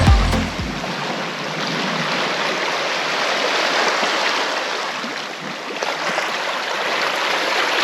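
Ocean surf washing over shoreline rocks as a steady rushing noise that eases slightly a little past the middle. An electronic dance music track fades out in the first second.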